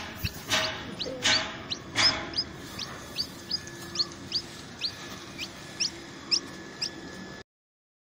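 A small young bird peeping over and over, short high calls about two or three a second, with rustling of leaves and branches in the first two seconds; the sound cuts off suddenly near the end.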